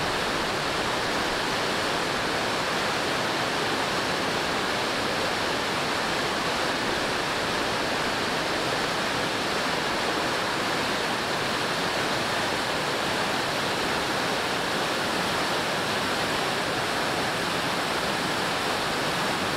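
Fast-flowing water rushing steadily, an even, unchanging wash of noise with no breaks.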